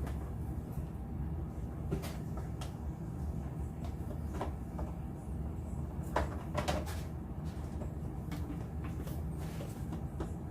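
Hard plastic crate parts clicking and knocking as they are handled and pushed together, with a louder pair of knocks about six seconds in. A steady low hum runs underneath.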